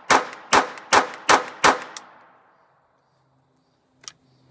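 Intratec Tec-22 .22 LR semi-automatic pistol firing about six shots in quick succession, roughly two or three a second, each with a short ringing echo. The last shot comes about two seconds in, and there is one faint click about four seconds in.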